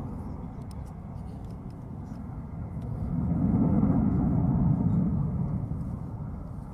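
Jet engines of two Su-30SM fighters passing in the distance: a low rumble that swells to its loudest about four seconds in, then fades.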